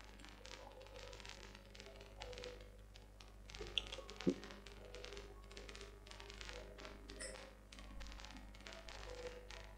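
Faint computer keyboard typing and mouse clicks, with two sharper clicks about four seconds in, over a steady low hum.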